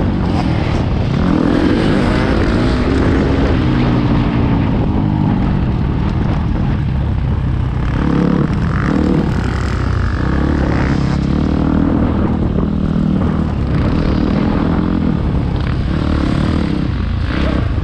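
KTM 250 SX-F four-stroke single-cylinder motocross engine under riding load, revving up and easing off over and over as the rider works the throttle and gears, with rushing wind noise over the top.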